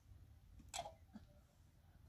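Near silence, with one faint short click a little before halfway.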